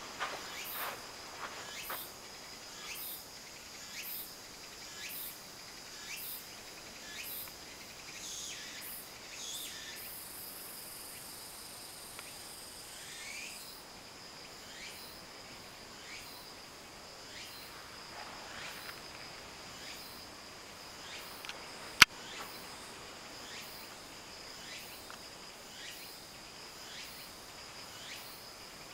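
Insects chirping: a steady high-pitched trill with a sharper chirp repeating about once a second. A few short gliding calls come in the middle, and a single sharp click about two-thirds of the way through is the loudest moment.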